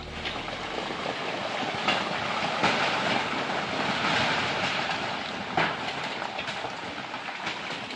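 Landslide: earth and rubble from a collapsed retention wall rushing and clattering down a slope, a continuous rushing noise broken by a few sharp cracks.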